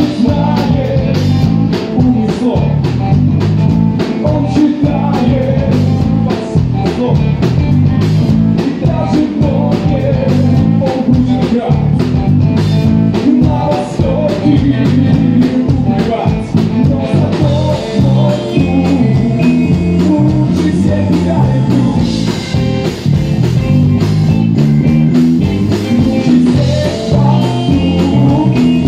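Live rock band playing: electric guitar, bass and drums with a regular beat, and a male lead singer singing.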